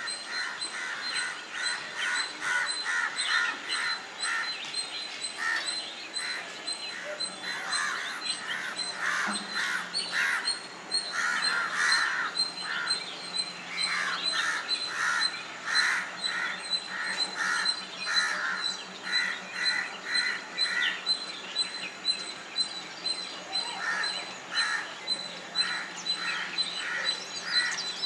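Ring-necked parakeets calling: short calls repeated several times a second, in runs broken by brief pauses.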